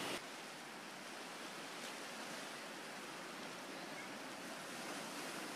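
Steady, faint wash of sea surf on a rocky cove.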